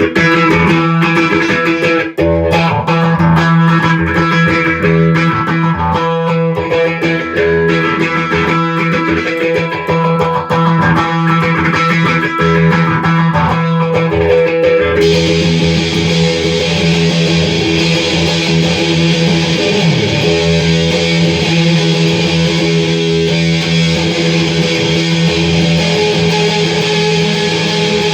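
Electric guitar played through a phaser pedal into distortion, with sustained chords and notes. About halfway through, the tone turns brighter and stays that way.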